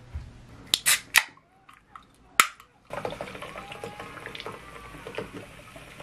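A few sharp clicks in the first two and a half seconds, then canned cola being poured into a glass mug, splashing and fizzing steadily.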